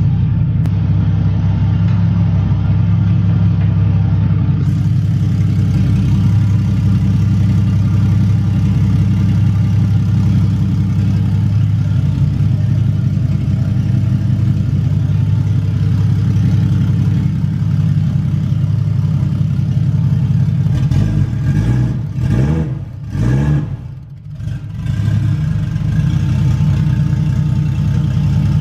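Turbocharged Toyota 1JZ straight-six idling steadily, soon after its first start in over a month. About twenty-two seconds in, the sound wavers and dips briefly before settling back.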